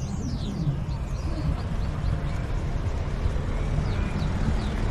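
Outdoor street ambience: a steady low rumble with birds chirping overhead in short falling notes.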